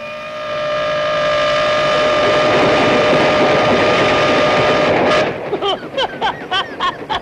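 A train running past, rumbling, with one long steady horn note over it, growing louder over the first two seconds and cut off sharply about five seconds in. Then a man laughing, about three laughs a second.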